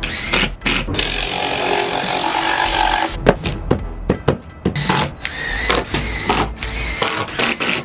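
Cordless drill driving screws into OSB floor sheets, sped up: quick whirs of the drill mixed with a rapid clatter of knocks on the wooden boards.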